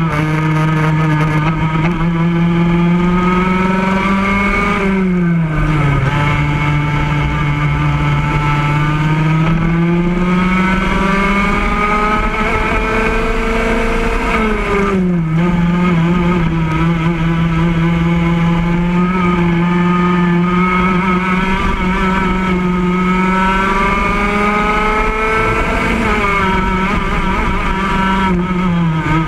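Racing kart engine at full throttle, heard close up from the kart itself. Its pitch drops three times as the kart slows for corners, then climbs back as it accelerates out.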